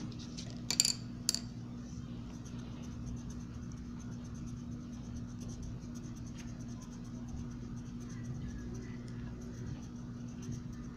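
A colouring tool rubbing and scratching faintly on paper as an area is filled in, over a steady low electrical hum. A few sharp clicks come about a second in.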